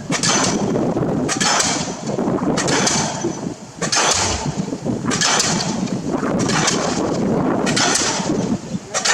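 Arcon DD-55 diesel pile hammer driving a precast concrete pile, firing a heavy blow about once a second in a steady rhythm.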